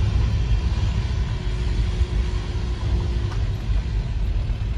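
VW T5 campervan's engine and road noise from inside the cab while driving: a steady low rumble.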